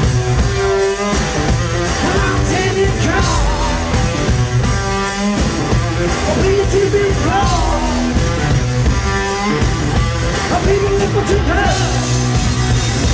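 Rock band playing an instrumental break: electric guitar riff with bent, wavering notes and repeated held notes over a drum kit.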